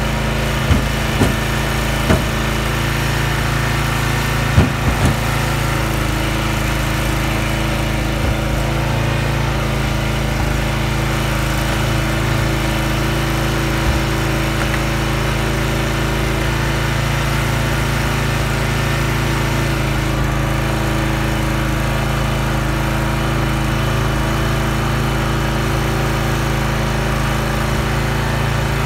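Gas engine of a Huskee log splitter running steadily, with a few sharp knocks in the first five seconds.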